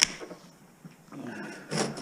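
Handling noise from stripping wiring out of bare walls: a sharp click at the start, a brief squeak about a second in, then a loud knock near the end.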